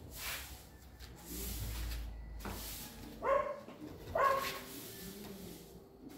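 An animal calling twice: two short, strident cries about a second apart, each falling in pitch.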